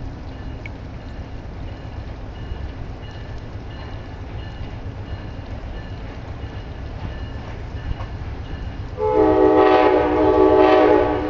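Approaching train's low rumble, then the locomotive's multi-chime air horn sounding loudly about nine seconds in, held for about two seconds with a brief dip partway.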